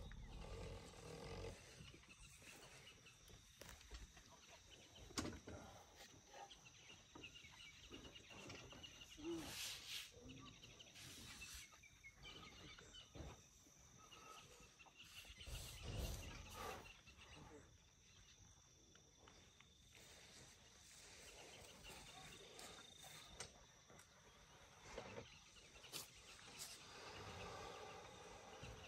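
Quiet outdoor ambience with scattered soft rustles and knocks and a few low thumps, about 16 seconds in the loudest.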